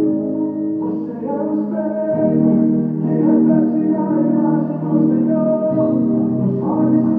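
Yamaha digital stage piano played in slow, sustained two-handed chords, the chord changing every few seconds.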